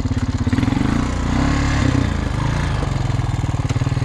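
Honda Rancher 350 ATV's single-cylinder four-stroke engine running with a steady putter. Its speed rises and wavers for about two seconds, starting about half a second in, then settles back to a steady idle.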